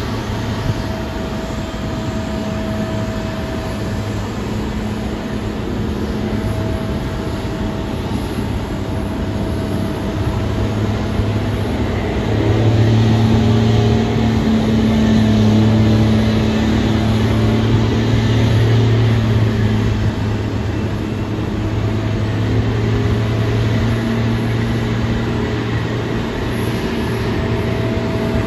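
Jet airliner engine noise, a steady rumble with a low hum that swells louder a little before halfway through and then eases off again.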